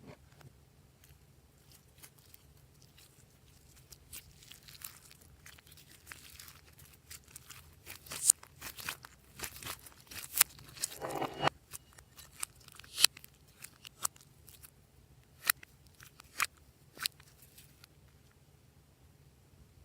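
Glossy slime being handled, making scattered sticky pops and crackles that come thickest and loudest in the middle.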